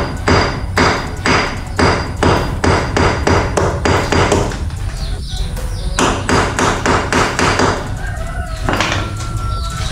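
Hammer striking repeatedly, about two blows a second, in two runs with a short pause about five seconds in and a last single blow near the end.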